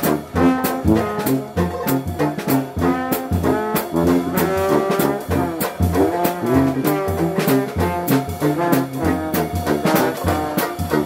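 Dixieland jazz band playing live, with trombone and trumpet leading over a steady beat.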